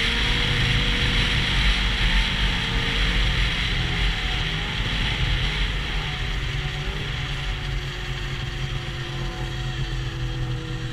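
Yamaha SX Viper snowmobile's 700 triple two-stroke engine running at a steady cruise, with track clatter and wind rush over it, easing off gradually toward the end.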